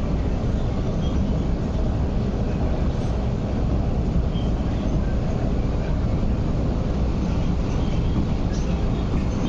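MTR MLR electric multiple unit, a 1980s Metro Cammell train, running at speed at about 80–85 km/h: a steady, even rumble of wheels on rail and running gear.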